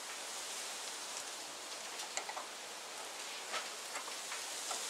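Steady background hiss with a few faint, light clicks of a new brake pad being set into its caliper bracket against the rotor.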